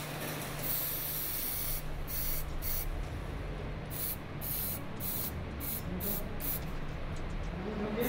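Aerosol spray-paint can hissing as it coats a weld on steel strut channel: one longer spray about a second in, then a string of short bursts.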